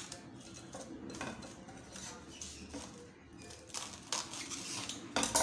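Plastic cling film crinkling and rustling as it is stretched and smoothed over a glass bowl, with light knocks from the bowl, then cut from the roll with scissors; a sharp stroke near the end is the loudest sound.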